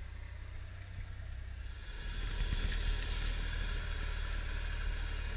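Low, steady rumble of a crew boat's engine, with a hiss that grows louder about two seconds in.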